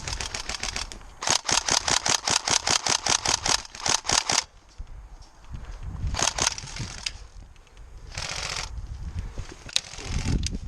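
Tokyo Marui SCAR-L airsoft electric gun firing a fully automatic burst of about three seconds, a rapid run of even, sharp clicks, followed a couple of seconds later by two quick shots. A brief hiss comes near the end.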